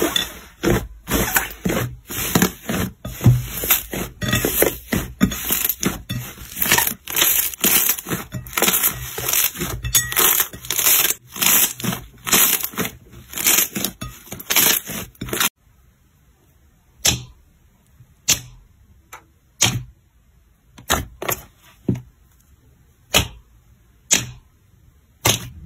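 Hands kneading and squeezing a big mound of blue slime, giving a dense, fast run of crackles and pops. After a cut about two-thirds of the way in, a hand pressing into clear orange slime in a tub gives separate sharp clicking pops about once a second.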